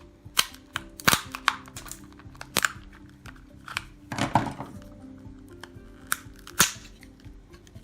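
Sharp clicks and clacks of small plastic and metal pieces from disassembled laptop power adapters being handled and set down, about seven of them, the loudest about a second in and again late on, with a short scraping rustle around the middle. Soft background music runs underneath.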